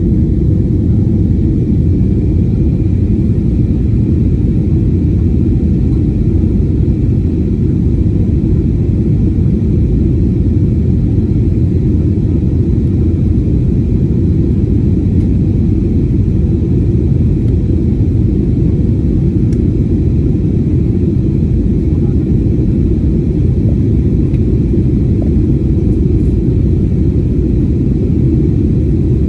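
Steady low rumble of a jet airliner's engines and airflow heard inside the cabin at a window seat as the plane climbs after takeoff.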